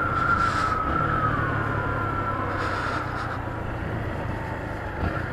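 Motorcycle engine running as it rides along at low speed, with road and wind noise. A thin whine over the engine eases lower in pitch a second or two in.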